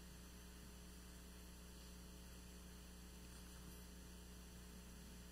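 Near silence, with a steady low electrical hum.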